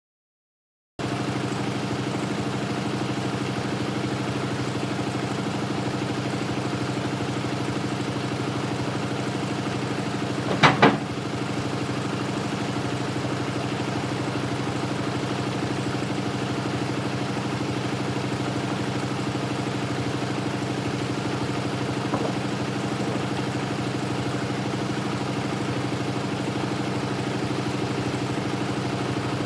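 Portable bandsaw mill's gasoline engine running at a steady speed, with a short double clatter about ten seconds in.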